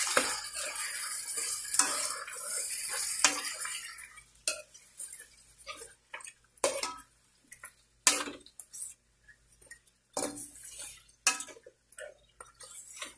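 Metal spoon stirring mutton and yogurt in a nonstick frying pan: a sizzling hiss with spoon clicks for about the first four seconds, then the sizzle dies away, leaving separate scrapes and clinks of the spoon against the pan.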